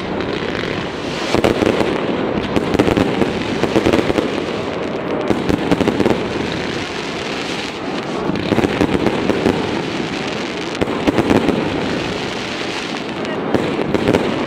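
Fireworks display: a dense, continuous crackle of many sharp pops and bangs from bursting shells, swelling and easing every few seconds.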